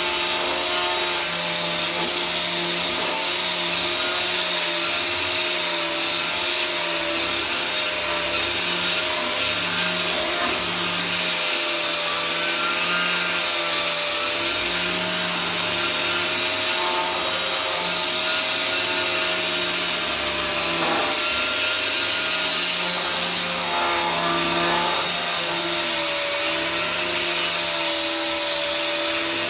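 Electric sander running steadily against a walnut sign, its motor pitch wavering slightly as it is worked over the wood, with a steady hiss from the abrasive.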